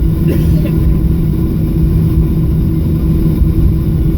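Steady cabin noise inside a Boeing 737 airliner after landing: a low rumble with a steady hum from the jet engines.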